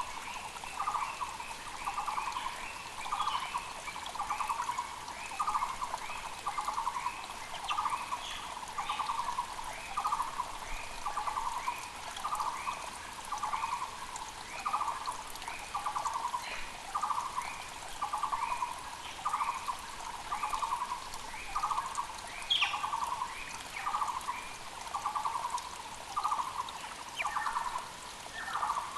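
Taiwan barbet (Müller's barbet) singing: a long, steady series of repeated low notes, a little over one a second, over a faint steady rush of a mountain creek.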